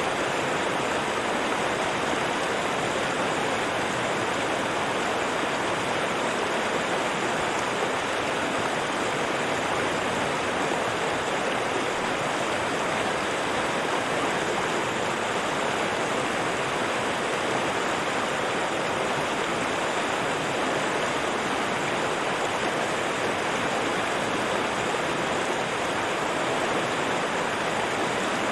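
River water rushing in a steady, unbroken wash with no other sounds.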